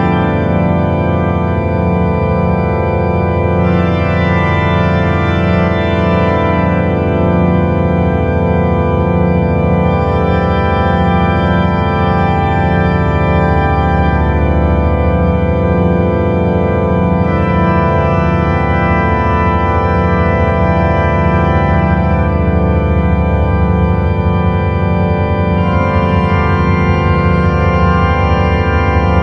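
Drone music: a dense, sustained chord of many held organ-like tones, with a low tone pulsing about twice a second underneath. The higher tones shift a few times.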